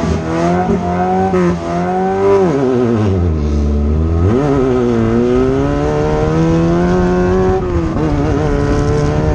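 Off-road race car engine running hard and changing revs, its pitch wavering up and down. It falls steeply about two and a half seconds in, then climbs again a little over four seconds in.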